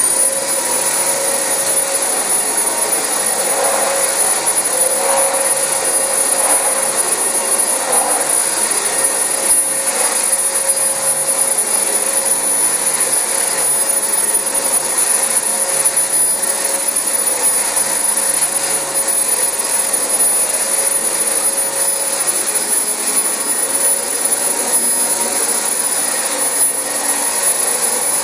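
Dyson DC25 upright ball vacuum cleaner running steadily on carpet, its motor giving a high, steady whine over the rush of suction.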